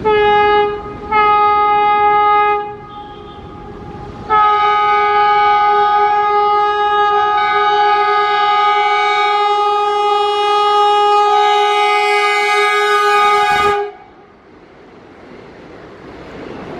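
Vande Bharat Express train horn sounding a short blast, a second blast of about a second and a half, then one long blast of about nine seconds that cuts off suddenly. After it the running noise of the approaching train rises.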